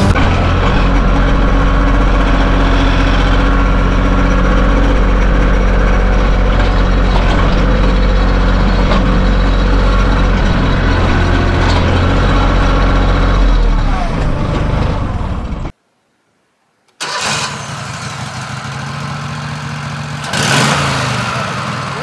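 Compact loader tractor's engine running steadily and loudly close by, heard from the driver's seat while the tractor carries a log. About 16 seconds in it cuts off abruptly, and after a moment's gap a quieter steady engine idle follows, with a brief louder swell near the end.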